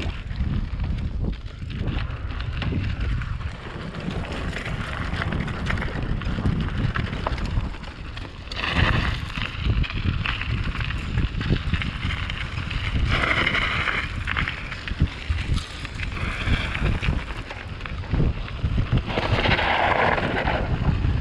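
Wind buffeting the microphone of a camera on a moving bicycle: a steady low rumble, with louder hissing surges about a third of the way in, again past halfway, and near the end.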